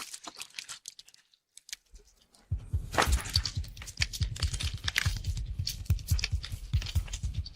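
Gore sound effect of bleeding: a few scattered wet clicks, then from about two and a half seconds in a dense, continuous run of wet squelching and crackling with low thuds underneath.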